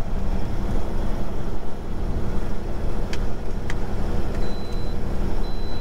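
Steady low drone of a semi truck's diesel engine and road noise, heard inside the sleeper cab while the truck is driving. Two faint clicks come about three seconds in, and short faint high beeps come near the end.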